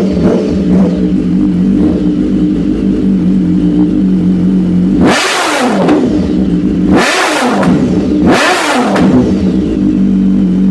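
BMW S1000R's inline-four engine idling through a Danmoto decat exhaust, blipped three times about two seconds apart in the second half, each rev rising sharply and dropping back to idle. Heard through a phone's microphone.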